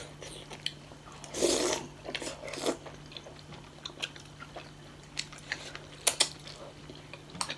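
Close-up eating sounds of steamed momo dumplings: chewing and biting, with a burst of wet mouth noise about one and a half seconds in. Sharp clicks of cutlery on plates come at scattered moments, a pair of them near the six-second mark.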